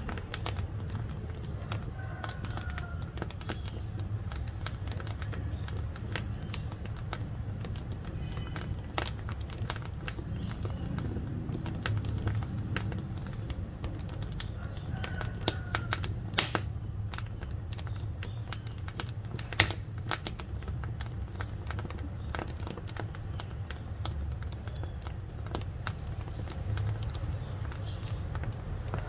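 Burning firewood crackling: a steady run of irregular sharp pops and snaps over a low rumble, with two louder pops past the middle.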